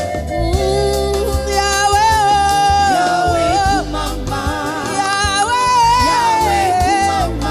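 Live gospel music: a woman sings lead with vibrato on long held notes, over a band of electric bass, electric guitar and drums.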